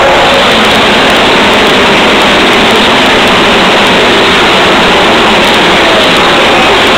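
Pack of NASCAR stock cars' V8 engines running at full throttle past the grandstand, a very loud, steady, dense engine noise that nearly overloads the microphone.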